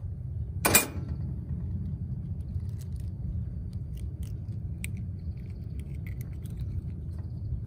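An egg being cracked open over bread: a sharp knock about a second in, then light cracking of the shell, over a steady low rumble.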